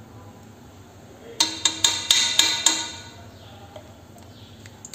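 A cooking spatula knocking against the rim of an aluminium pressure cooker, about eight quick, uneven taps in just over a second, with the metal ringing faintly under them.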